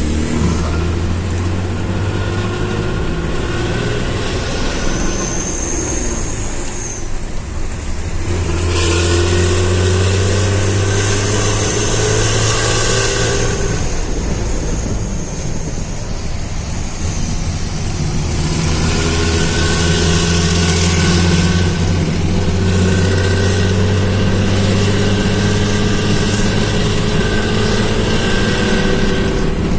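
Economy bus's diesel engine and exhaust pulling under way, its pitch climbing, dropping about halfway through at a gear change, then climbing again. The exhaust has a deep snoring note.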